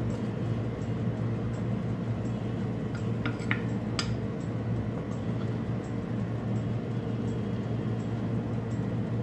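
Steady hum of a running wall air conditioner, with a few light clinks of a metal spoon against the frying pan and plate, a cluster about three seconds in and one sharper clink at four seconds.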